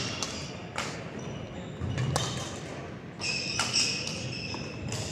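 Badminton doubles rally: sharp racket strikes on the shuttlecock about once every second or so, with shoes squeaking on the court floor in the middle of the rally.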